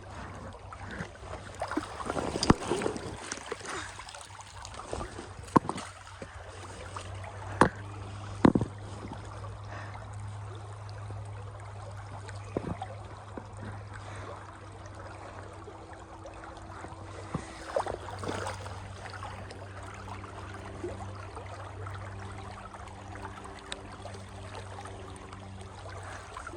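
Running stream water, with a few sharp knocks in the first nine seconds.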